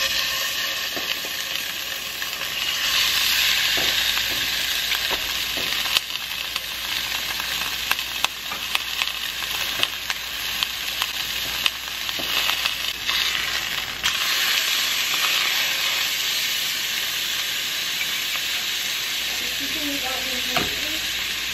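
Steak and a marinated halibut fillet sizzling as they fry in hot oiled pans. The sizzle starts suddenly as the first steak goes in and grows louder about three seconds later, with occasional clicks of a fork and spatula against the pans.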